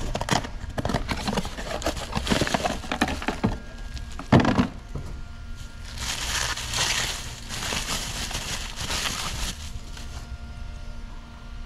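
Crumpled packing paper and a cardboard parts box crackling and rustling as they are handled, with one heavy thump about four seconds in. Then a plastic bag crinkles as a new water pump is unwrapped.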